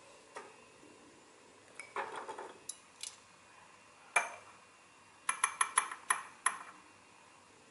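A metal measuring spoon clinking against a glass jar as it scoops ground spice: a single sharp clink about four seconds in, then a quick run of about seven ringing clinks. Earlier come a few soft knocks and a short scrape.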